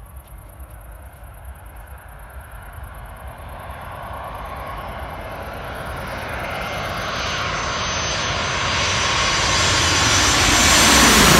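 Airbus A320 jet airliner on final approach to land, its engines growing steadily louder as it closes in and peaking as it passes low overhead near the end. A faint whine rides on top of the rush.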